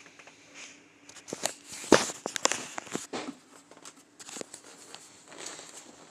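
Handling noise from the recording device being touched and adjusted: a run of sharp clicks, taps and rustles, loudest about two seconds in, then fewer and softer.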